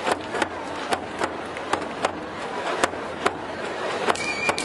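Outdoor festival crowd noise with irregular sharp cracks, a few every second or so. A high, steady whistle-like tone comes in near the end.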